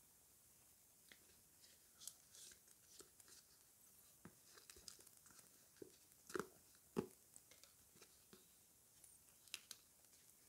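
A sticker packet being torn open by hand and the folded sticker strip inside handled: soft scattered crinkles and tearing crackles, with two louder crackles about six and seven seconds in.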